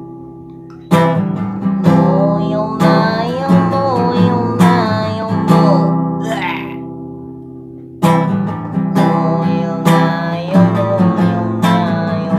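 Acoustic guitar strummed in chords, roughly one stroke a second, with a voice singing a wavering melody over it. The playing stops briefly near the start and again about six and a half seconds in, then comes back in.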